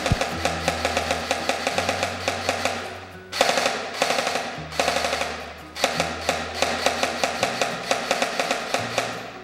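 ARES Amoeba AM-014 airsoft electric gun firing full-auto in long bursts of many shots a second, stopping briefly about three and a half seconds in and again for about a second near the middle. Background music with a bass line plays underneath.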